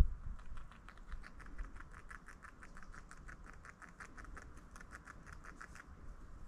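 Beaver gnawing wood, a faint, rapid, even run of crunching clicks at about seven a second that starts about half a second in and stops near the end.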